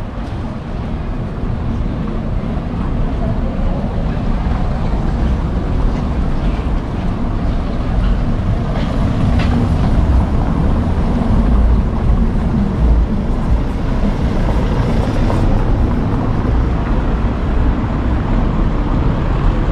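Wind rumbling steadily on the microphone of a handheld camera.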